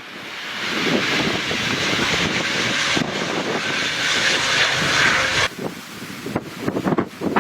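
Aircraft engines passing with a loud, steady rushing whine that builds over the first second and cuts off abruptly about five and a half seconds in. Gusty wind buffeting the microphone follows.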